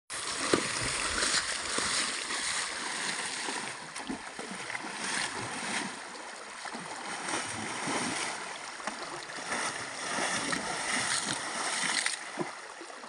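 Horse pawing and stamping in a shallow rocky stream, its hooves striking and throwing water in a run of irregular splashes over the steady rush of the shallow current.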